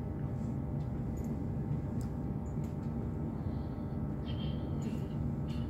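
Steady low rumble and hum of an InterCity 225 train running at speed, heard from inside a passenger coach, with a few faint clicks.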